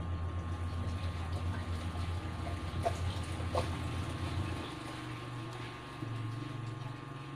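Low steady hum that shifts to a slightly higher pitch about five seconds in, with a couple of faint short scratches as a blade cuts copper traces on an LED TV's T-con board.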